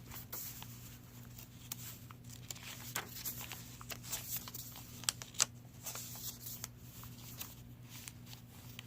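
Paper pages, tags and tucks of a handmade cloth-covered junk journal being flipped and handled: scattered light rustles and taps, the sharpest pair a little past the middle, over a steady low hum.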